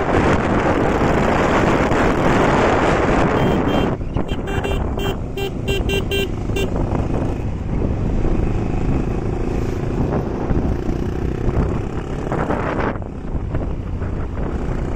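Motorcycle running along a mountain road, with wind buffeting the microphone for the first few seconds. About four seconds in comes a quick run of short beeps, then the engine's steady drone is heard.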